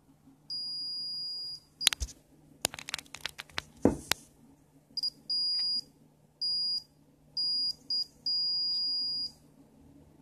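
Multimeter in continuity mode beeping with a steady high tone, seven beeps of varying length, each one marking the inductive proximity sensor detecting the copper board. Sharp clicks and knocks come between the first beep and the rest.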